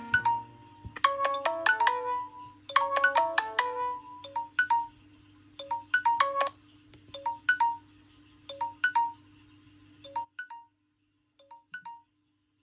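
Smartphone ringtone: a melody of short pitched notes in repeating phrases, busier at first and sparser later, cutting out about ten seconds in, with a few fainter notes after it.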